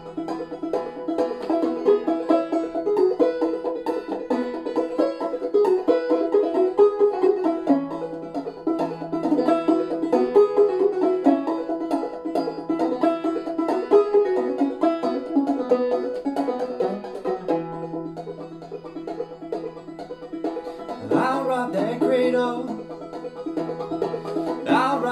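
Open-back banjo played clawhammer style, a steady picked melody with a ringing drone under it, in double C tuning capoed at the fourth fret so that it sounds in E major.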